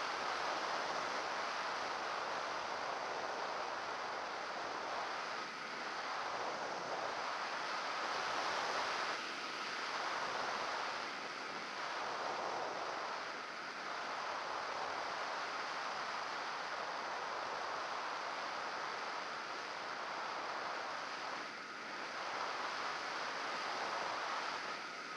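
Wind rushing over the onboard camera of a model aircraft in flight: a steady hiss that swells and eases a little as the plane turns.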